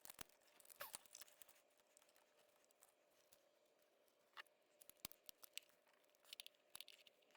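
Near silence, broken by faint scattered clicks and rustles of hands working connectors and hoses loose on the engine, over a faint steady hum.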